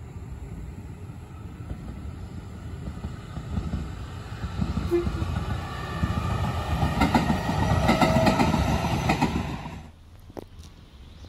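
Electric commuter train running past on the embankment: its running noise grows louder as it draws near, with a faint whine over the rumble, and peaks about eight seconds in before cutting off abruptly. A few sharp clicks follow in the quieter background.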